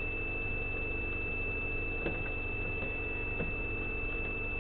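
A steady high-pitched electronic whine over a low hum, with a couple of faint clicks.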